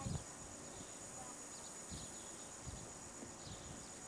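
Quiet outdoor ambience on an old camcorder recording: steady tape hiss with a faint high whine, a few soft low bumps, and faint short high chirps.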